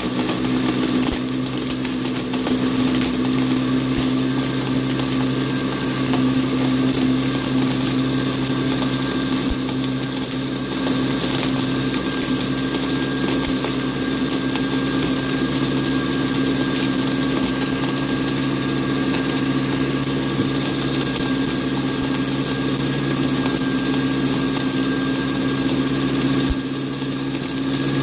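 Countertop blender motor running steadily, blending a slush of Sprite, gummy candies and ice pops in a glass jar. The loudness dips briefly near the end.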